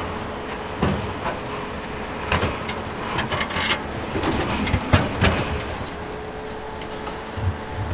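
Hydraulic excavator's diesel engine running steadily while its bucket digs into a soil pile, with a run of sharp knocks and clanks from the bucket and linkage through the middle of the dig.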